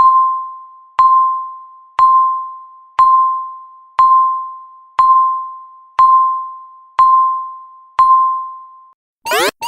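Countdown timer beeping once a second, each beep a single ringing tone that fades away before the next. Near the end the beeps stop and the timer's electronic alarm starts: rapid, repeated rising chirps.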